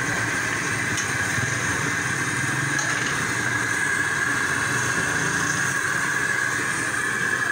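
Steady roadside traffic noise with motorcycles running nearby, a continuous roar with a couple of faint clicks about one and three seconds in.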